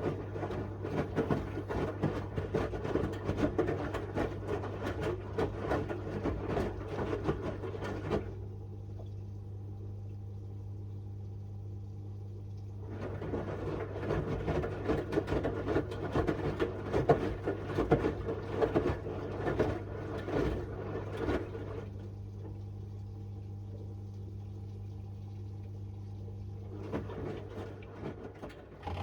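Miele W1 front-loading washing machine drum tumbling a small load of laundry in water: it turns for about eight seconds, pauses for about five, turns again for about nine seconds, pauses, and starts again near the end. A steady low hum runs under the whole stretch.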